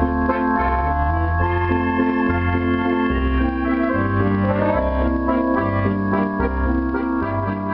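Electronic accordion played through an amplifier with an organ-like voice: held chords over bass notes that change in steady steps.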